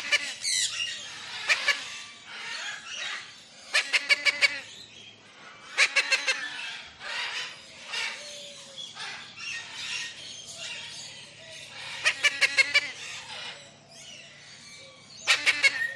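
A chorus of tropical birds calling and chirping, with a louder bird repeatedly giving quick runs of four to six sharp notes every few seconds.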